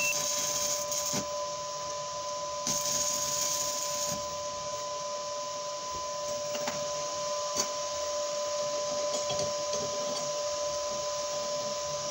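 Arc welding crackling and hissing as the arc burns, stopping about half a second in, with a second short burst of about a second and a half a few seconds later. Under it runs a steady hum with two steady tones.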